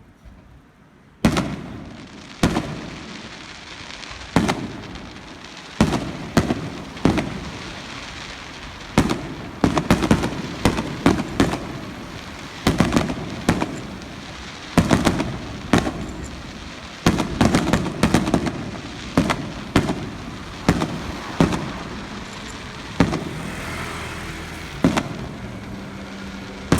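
Aerial fireworks bursting: after a quiet second, a long run of loud booms and bangs, some single and some in quick clusters, with the noise of each dying away under the next.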